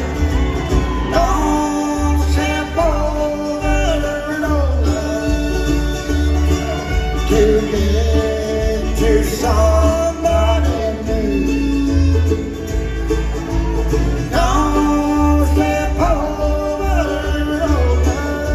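Live bluegrass music: a band playing with singing, over a pulsing bass line, with acoustic guitar and banjo picking.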